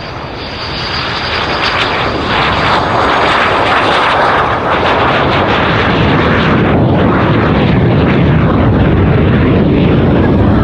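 Lockheed T-33's Allison J33 centrifugal-flow turbojet heard as the jet flies by low. The noise builds over the first couple of seconds to a loud, steady rush, and its tone goes lower in the second half as the plane passes.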